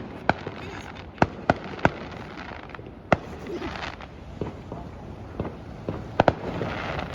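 Fireworks and firecrackers going off: about ten sharp, separate bangs at irregular intervals, the loudest just after three seconds and two in quick succession a little after six seconds.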